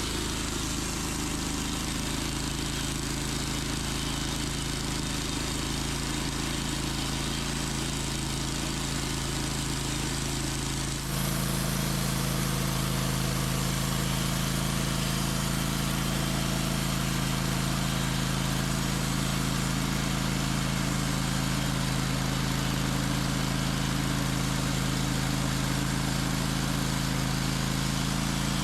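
Band sawmill running steadily while making a cut through an oak log with a freshly fitted 10-degree blade, a constant machine hum with a hiss over it. About eleven seconds in the sound steps up suddenly to a louder, fuller hum and holds there.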